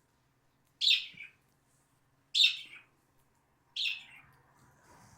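Cockatiel chirping: three short high calls about a second and a half apart, each falling in pitch.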